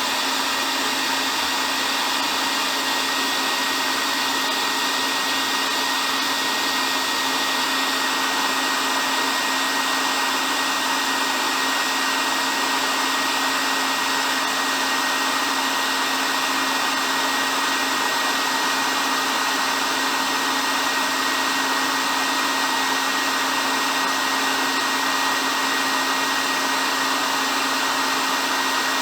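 Electric hair dryer running continuously at a constant speed: a steady rush of air with a fixed motor whine, used as soothing white noise for sleep.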